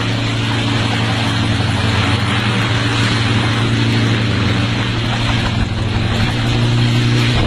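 Small engine running steadily at high speed, with a rushing, wind-like noise over it; it cuts off suddenly near the end.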